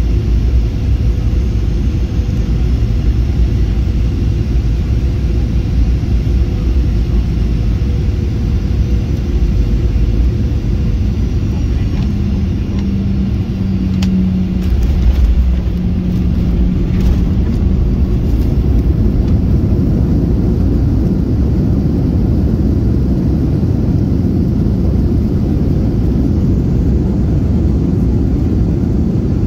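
Cabin noise of a Boeing 737-800, with its CFM56-7B engines and airflow making a steady loud rumble through final approach, touchdown and the runway roll. About halfway through, an engine hum swells and then fades as the aircraft decelerates on the runway, typical of reverse thrust after landing.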